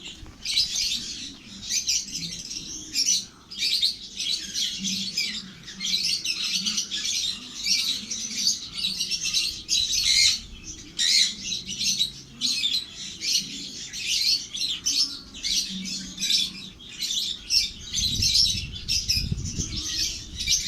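Baby parrots calling in a near-constant stream of rapid, high-pitched squawks and chirps, with a low rumble near the end.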